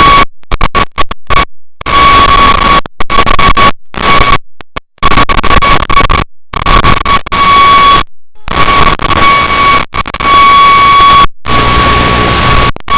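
Loud static hiss from an analog FPV video receiver, with a steady high whine. It cuts out abruptly to silence again and again, in gaps of a fraction of a second.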